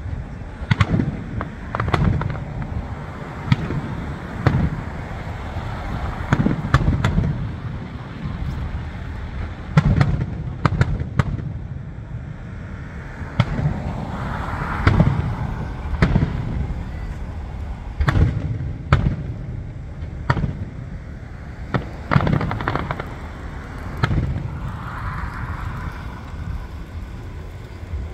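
Aerial firework shells bursting overhead in a steady series of sharp bangs, one every second or two, with a hissing stretch about halfway through and another near the end.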